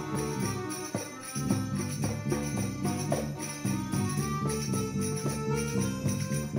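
Live dance music: a synth accordion holding a sustained melody over darbuka drum strokes, with bright metallic jingling on top.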